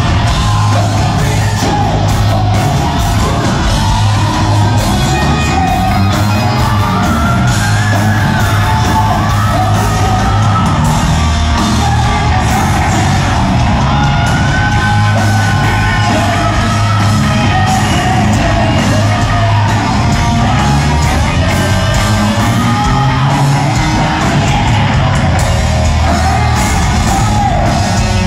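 A hard rock band playing live and loud: a drum kit, distorted electric guitar and bass, with a singer's voice over them, heard from among the audience in a large hall.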